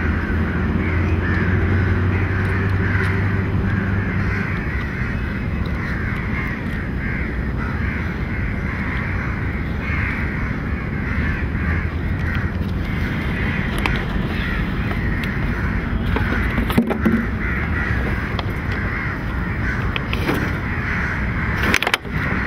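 A dense, continuous chorus of many birds calling over one another, with a low steady hum underneath that fades out about four seconds in.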